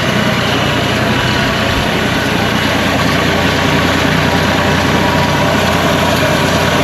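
Cook's AC 36 band sawmill's engine idling steadily.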